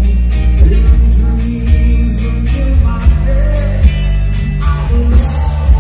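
Rock band playing live: electric guitars, bass and drums, with a male singer.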